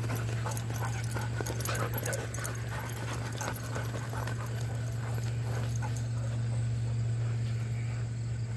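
Dogs playing and chasing each other on grass: many quick, soft scuffles and footfalls, over a steady low hum.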